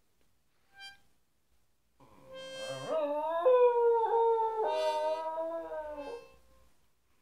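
Cairn terrier howling. After a brief high note about a second in, a long wavering howl starts about two seconds in and lasts about four seconds, shifting pitch in steps.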